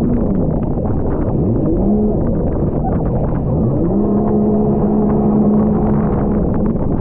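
Jet ski engine running under throttle, its pitch rising and dropping once, then climbing again about four seconds in and holding steady, over a loud constant rush of wind and water with frequent short slaps.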